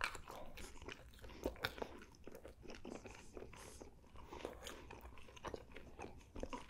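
Close-miked chewing of pepperoni pizza: many small, irregular crunches and wet mouth clicks as the crust is chewed.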